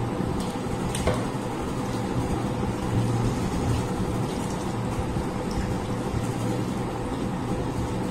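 Steady low hum and hiss of room noise, with a few faint soft clicks from hands mixing and eating rice on metal plates.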